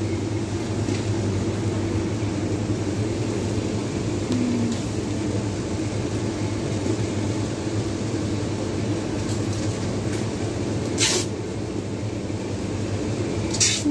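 Steady low hum of a supermarket's refrigerated display freezers and ventilation. Two brief hissing noises come near the end.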